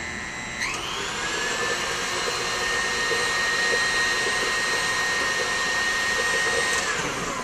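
Electric tilt-head stand mixer beating frangipane batter in its steel bowl. Its motor whine rises in speed about half a second in, runs steadily, then winds down and stops near the end.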